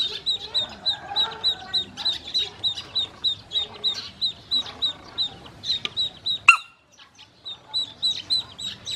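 Ducklings peeping: a steady stream of short, high, falling peeps, about four a second. About six and a half seconds in comes one louder, sharper call, then a short lull before the peeping picks up again.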